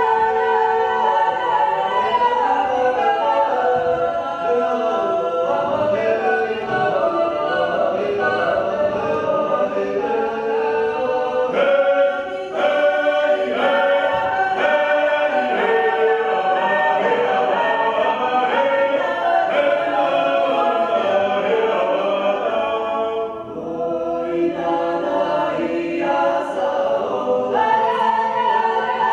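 Unaccompanied choir singing a Georgian folk song in several voice parts, with brief breaks between phrases about twelve seconds in and again near 23 seconds.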